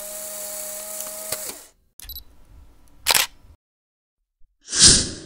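Sound effects of an animated logo intro. A steady electronic hum with two held tones and some clicks lasts about a second and a half. A brief sharp sound comes about three seconds in, and a loud hit with a fading hiss comes near the end.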